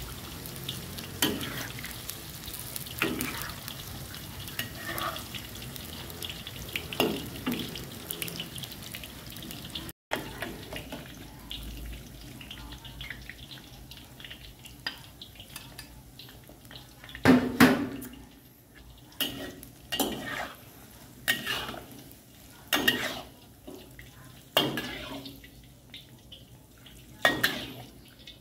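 Kitchen work: a steady hiss with small clatters, then, after a cut, pots and dishes knocking against each other every second or two.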